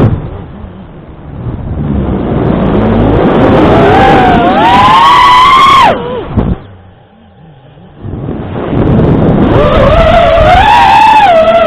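FPV freestyle quadcopter's motors and propellers whining, the pitch rising and falling with the throttle. Just past the middle the whine drops away for about a second and a half as the throttle is cut, then climbs back and wavers up and down.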